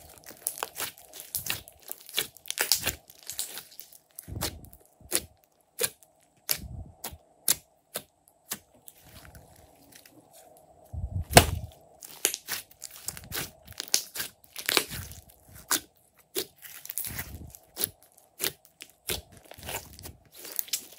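Glossy slime being squeezed, folded and stretched by hand, giving a dense, irregular run of wet clicks, pops and squelches, with one louder pop about eleven seconds in.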